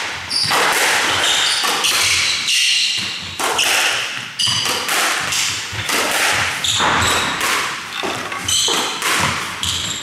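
Squash rally: the rubber ball cracking off rackets and thudding against the court walls again and again at an irregular pace, with short high squeaks of shoes on the wooden floor.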